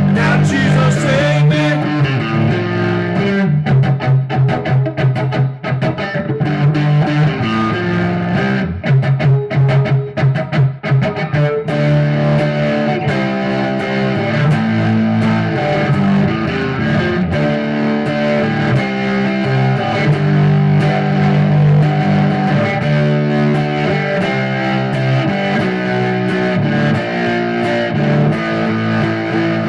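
Electric guitar, a Gibson Les Paul Studio, played with distortion in a rock song over a backing track with a bass line. Short, choppy chord strokes for the first several seconds, then smoother held notes.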